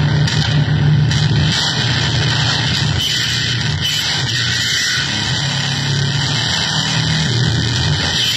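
Harsh electronic keyboard noise: a dense, steady wall of hiss over a loud low drone, whose pitch pattern shifts about halfway through.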